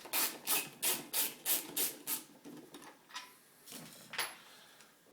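Hand tool clicking in a quick, even rhythm, about three clicks a second, as a bolt is worked out of a TriStar vacuum cleaner's housing; the clicking stops a little after two seconds in, followed by a few faint handling sounds.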